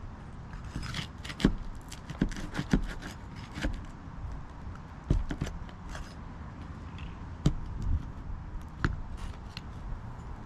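Irregular metallic clicks and short scrapes of a roof snake (shingle nail puller) worked under asphalt shingles to reach and pull the roofing nails.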